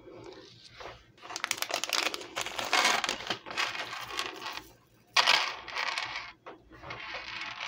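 Rapid clicking, clinking and rustling as hands handle a costume-jewelry necklace of small beads and metal chain, broken by a brief pause about five seconds in.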